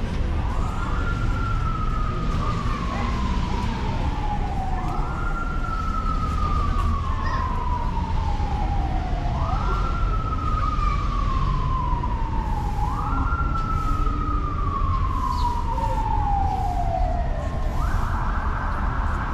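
Emergency vehicle siren wailing in four slow cycles about four seconds apart, each a quick rise in pitch and a long fall, then changing pattern near the end. A steady low rumble runs underneath.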